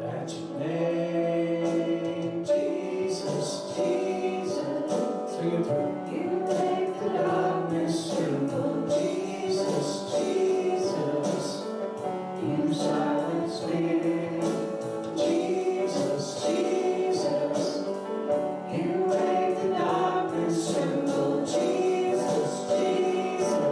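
A church congregation and worship team singing a worship song with instrumental accompaniment and a steady beat.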